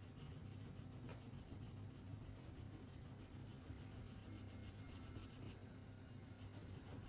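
Wax crayon rubbing on paper in quick, even back-and-forth shading strokes, faint, pausing briefly a little before the end.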